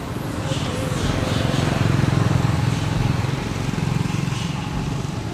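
A motor vehicle passing by, its low engine rumble swelling to a peak in the middle and then easing off.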